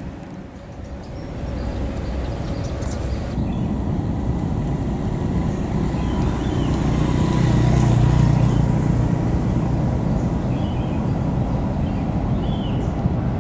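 KRL commuter electric train running past on the elevated tracks: a low rumble that builds and is loudest about eight seconds in, with a faint steady whine above it.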